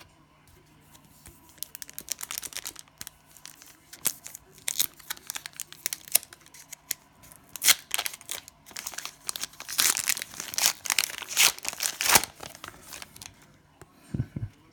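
Cellophane wrapper of a trading-card pack being torn open and crinkled: a run of sharp, irregular rustling tears, loudest about two-thirds of the way through. A short low thump comes near the end.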